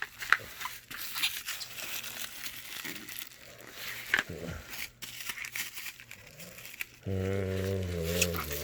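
Packaging being handled and pulled apart: crinkling, rustling and tearing of wrapping with scattered clicks. About seven seconds in, a louder steady low hum starts and shifts slightly in pitch.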